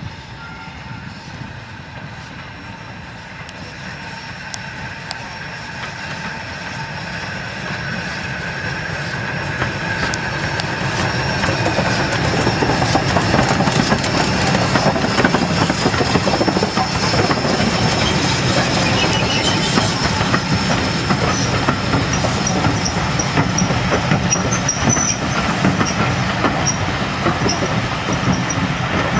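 Ivatt Class 2 2-6-0 steam locomotive hauling a train of coaches past at low speed. The sound builds over the first dozen seconds as it approaches, then holds steady with the rumble and clatter of wheels over the rails and a thin wheel squeal. Steam hisses from the cylinders as it passes.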